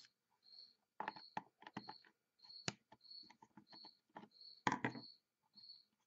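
Wires being pulled from the plastic terminal block of a thermostat backplate: scattered small clicks and taps of plastic and wire being handled, the sharpest a little under 3 s in and a cluster near 5 s.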